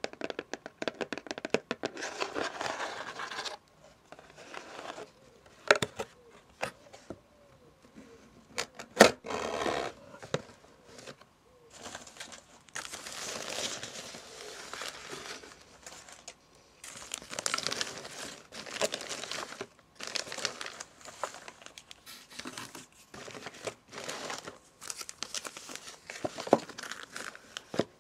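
Paper and cardboard packaging crinkled and torn by hand, in irregular bursts of a second or two, with sharp clicks and taps between them.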